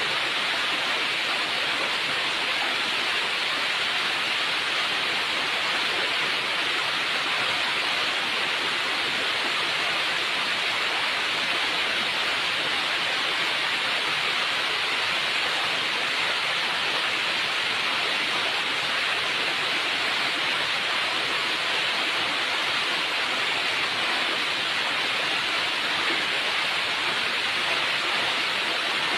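Steady, even rush of water with no pitch or rhythm.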